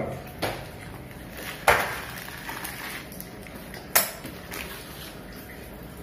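Small metal sink-mixer fittings clinking and knocking as they are handled and set down, with two sharper clinks, one near two seconds in and one about four seconds in.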